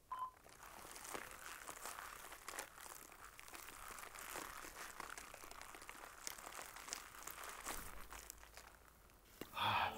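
A last short countdown beep, then faint, irregular creaking and crackling of Foley leather being squeezed and worked, layered with the crunch of a head of cabbage crushed in gloved hands. The two props together give the rising stress and pressure of a skull about to be crushed.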